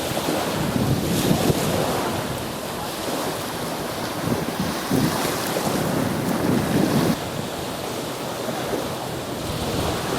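Strong gale-force wind buffeting the microphone in uneven gusts, with waves washing in on the shore close by.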